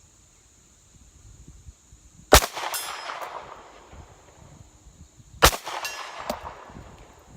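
Two 9mm pistol shots from a compensated Glock 19 (G19c), about three seconds apart. Each is followed about half a second later by a metallic ring, a bullet striking a steel plate at 100 yards. Wind rumbles on the microphone throughout.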